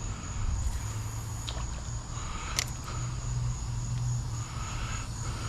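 Insects chirring in one steady high-pitched tone over a low rumble, with a single sharp click about two and a half seconds in.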